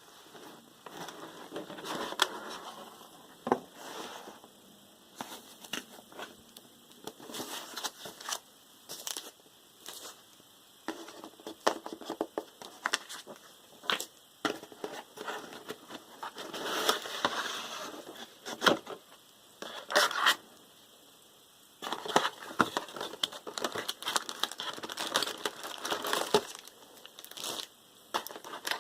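Packaging being handled during an unboxing: plastic and paper crinkling and rustling in irregular bursts, with scattered sharp clicks and knocks.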